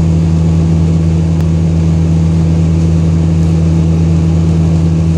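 City bus engine idling, heard from inside the bus as a steady low drone with a constant hum.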